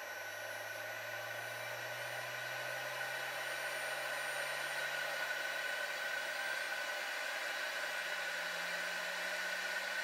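VEVOR 3 kW CNC milling spindle motor, driven by its frequency inverter, spinning up slowly on its factory-set 50-second ramp to full speed. It makes a steady whir with a low hum that rises gradually in pitch and grows a little louder.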